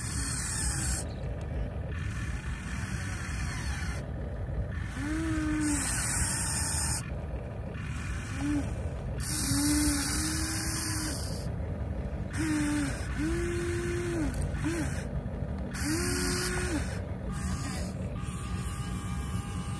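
Small electric motors of a Huina 1593 RC excavator whining in a string of short bursts as the boom, arm and bucket move while digging. Each whine rises, holds and drops away, over a steady low rumble.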